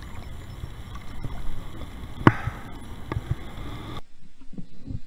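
Kayak being handled on the water while a big flathead catfish pulls against the line alongside, with a steady low rumble of water and handling noise. One sharp knock about two seconds in and two softer knocks a second later; the sound drops away abruptly near the end.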